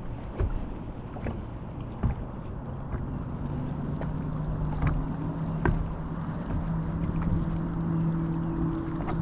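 Boat motor running on the water, its steady hum coming in a few seconds in, growing stronger and rising slightly in pitch, over a rumble of wind and water. Sharp knocks and taps come every second or so.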